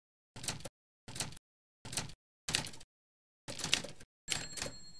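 Five short mechanical clattering sound effects, each lasting under half a second and separated by dead silence. Just after four seconds in, a continuous background sound begins, with faint steady high tones.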